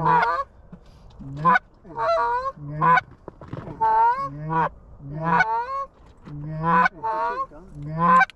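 Goose honking: a run of loud, short honks, about one a second, many breaking from a low note up to a higher one.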